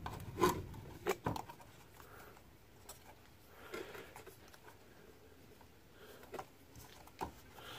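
Faint handling sounds of hands working a rubber gasket onto a plastic blower motor housing: a few soft clicks and knocks in the first second or so, then quiet rubbing now and then.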